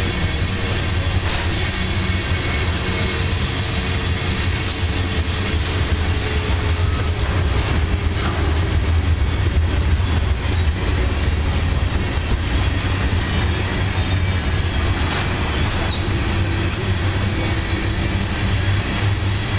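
Freight train tank cars rolling past close by: a steady rumble of steel wheels on rail, with clicks over the rail joints and a faint wheel squeal.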